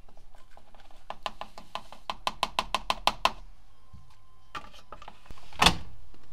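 Bauknecht WAK 6950 washing machine: a quick run of sharp mechanical clicks, about five a second, then a single loud thunk near the end.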